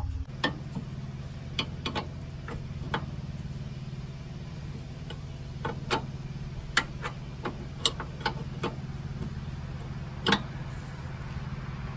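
Irregular metal clicks and clinks of a 19 mm wrench being worked on the lock nut of an outer tie rod, with one louder clank about ten seconds in. A steady low hum runs underneath.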